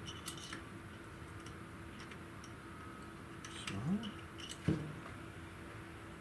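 Scattered light clicks and ticks of small metal parts and tools being handled, a few near the start and more in the second half, over a faint steady hum.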